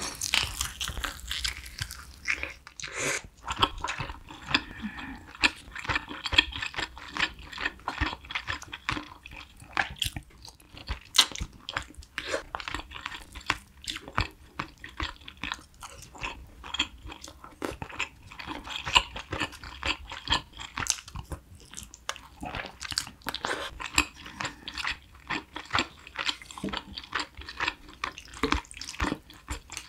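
Close-miked mouth sounds of someone eating spicy braised chicken: steady chewing and biting, with dense wet clicks and smacks.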